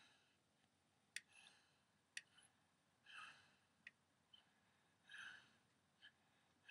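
Faint snoring of a sleeping person: soft, breathy snores roughly every two seconds, with a few faint clicks in between.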